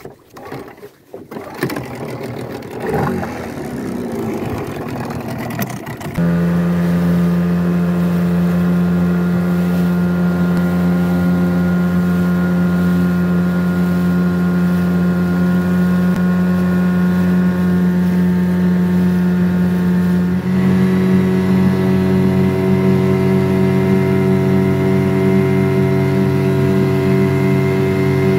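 Outboard boat motor running at a steady pitch. It comes in suddenly and loudly about six seconds in, after quieter irregular noise, and its note shifts to a different steady pitch about twenty seconds in.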